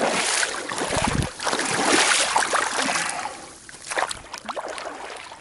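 Water splashing and sloshing close beside a small boat on a pond, loudest for about the first three seconds, then quieter.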